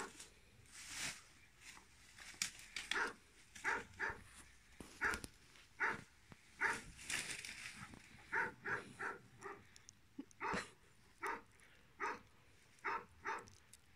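Pyrenean Mountain Dog barking in a quick, irregular run of about twenty short, sharp barks.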